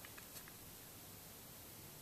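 Near silence: room tone, with a few faint ticks in the first half second from a screwdriver backing out small screws in an engine crankcase.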